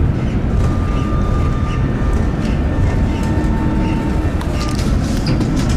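Tram running on rails: a steady low rumble of steel wheels on track, with faint whines from the electric drive that come and go and a few sharp clicks near the end.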